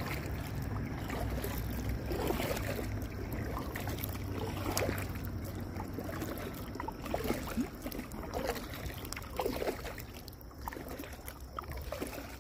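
Kayak paddle dipping and splashing in river water in irregular strokes, with water trickling off the blades.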